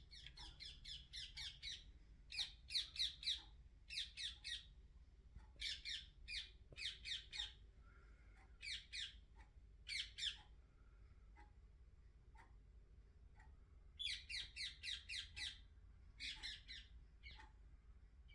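A bird calling in quick series of short, harsh notes, groups of three to six notes with short pauses between them.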